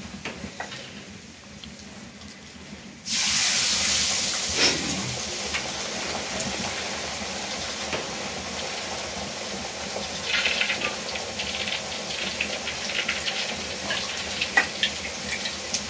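Puri deep-frying in hot oil in an iron wok: about three seconds in, a raw disc of dough going into the oil sets off a sudden loud sizzle that carries on, easing a little, with sharp pops and crackles spitting through it later.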